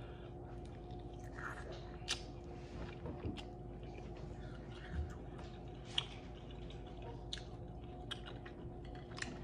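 A person chewing a bite of sauced fried chicken wing, with soft wet mouth smacks and clicks every second or so, a few sharper than the rest.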